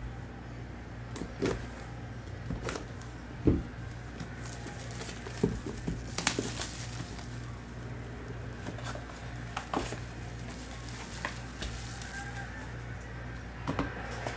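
Irregular taps, knocks and rustles of hands pulling plastic shrink-wrap off a sealed trading-card box and lifting its cardboard lid, over a steady low hum.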